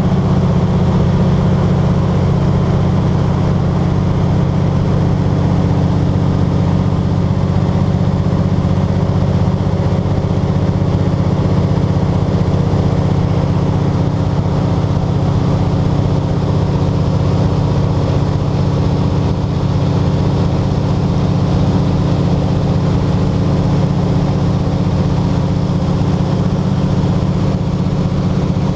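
De Havilland Canada DHC-2 Beaver's Pratt & Whitney R-985 radial engine and propeller running steadily at constant power, with a low, even hum of several steady tones.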